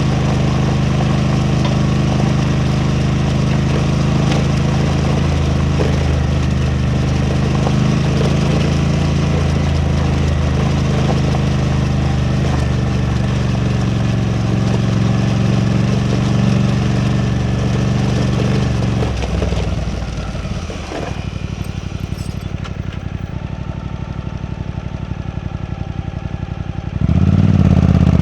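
Suzuki V-Strom 800DE motorcycle's parallel-twin engine running steadily under way, then dropping back to a quieter idle about two-thirds of the way through, and picking up sharply again near the end as the throttle opens.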